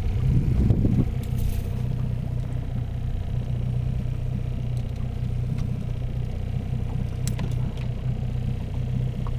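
Small boat's outboard motor running steadily at low revs: an even low hum. A short knock about seven seconds in.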